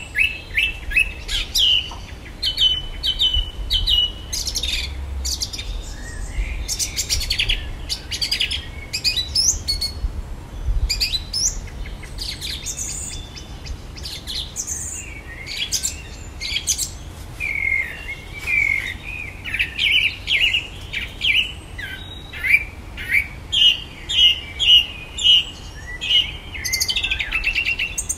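Male Eurasian blackbird singing a continuous stream of short, varied phrases: runs of rapid repeated high notes and clicks, mixed with mimicked electronic noises.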